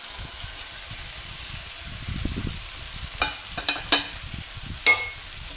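Fried beef pieces going into a pan of simmering masala gravy and being stirred: a steady sizzle, a rumble of stirring about two seconds in, then a spoon knocking against the pan four times in the second half.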